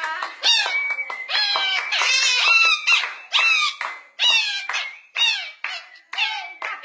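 Yellow parrot singing: a rhythmic run of short, squawky calls, about two a second, each bending downward in pitch.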